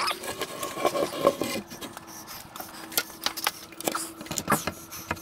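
Irregular knocks, clicks and scrapes of a wooden board being handled and pushed into place against a wall, over a faint steady hum.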